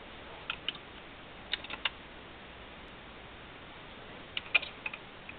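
Dual 1249 automatic turntable's change-cycle mechanism clicking and ticking as the tonearm lifts and swings out over the spinning record, in small clusters near the start, about a second and a half in, and again about four and a half seconds in, over a faint steady hum.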